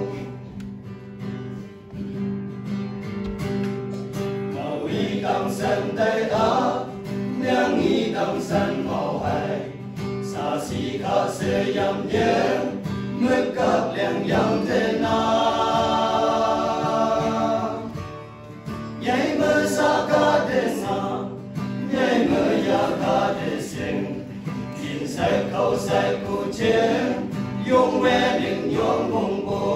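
Men's choir singing a gospel song together, accompanied by a guitar, with one long held chord about halfway through.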